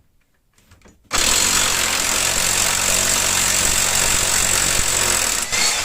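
Impact wrench hammering as it undoes a car's subframe mounting bolt, starting suddenly about a second in and running steadily for about four seconds before stopping.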